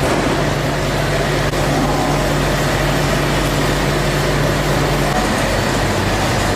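Steady machine running noise with a low hum, the hum cutting out about five seconds in.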